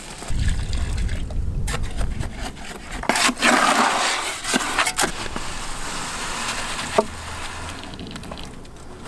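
Wet concrete or mortar being poured and worked with a tool: sloshing and scraping, with a few sharp knocks scattered through.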